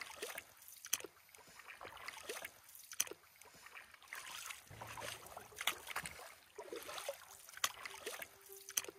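Canoe paddles stroking through calm lake water: faint swishes and drips, with a short sharp splash or knock every second or two.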